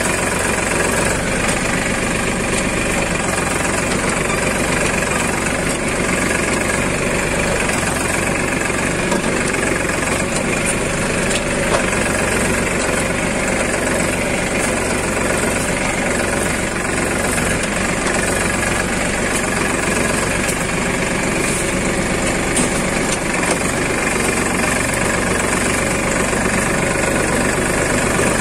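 Escort tractor's diesel engine running steadily under load while pulling a mounted disc plough through the soil.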